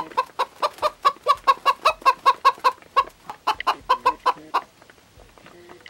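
Chickens clucking: a fast run of short clucks, about five a second, that stops about four and a half seconds in.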